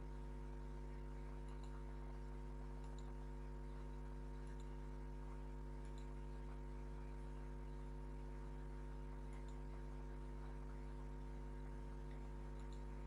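Steady electrical hum with a strong low drone and several higher overtones, with faint short clicks every second or two.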